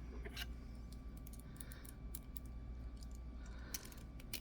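Scattered small metallic clicks and ticks from a lock pick and tension wrench working in a cheap brass padlock, with a few sharper clicks near the end.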